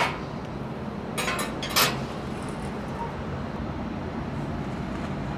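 Steady hum of city traffic heard from a high-rise balcony, with a brief clatter about a second in and another shortly after.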